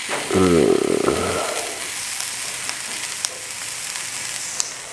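Onions, bay leaves and spice seasoning sizzling in hot coconut oil in a frying pan, as a steady hiss with scattered clicks from a wooden spatula stirring. A short wordless vocal sound comes about half a second in.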